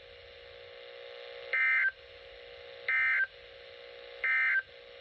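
Emergency Alert System end-of-message data code: three short, identical warbling digital bursts, about 1.4 s apart, over a steady hum. These bursts mark the end of the alert message.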